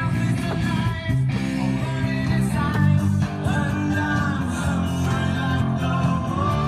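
Rock song playing, with guitar and a singing voice over sustained low notes.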